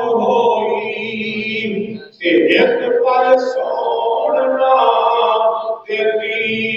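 A man's voice chanting in long, held melodic phrases, with short breaks about two seconds and six seconds in.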